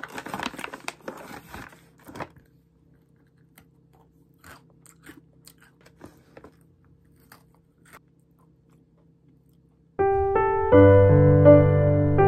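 A plastic zip-top bag crinkling as it is handled, then faint crunching and chewing of a crisp cookie. About ten seconds in, gentle piano music starts and is the loudest sound.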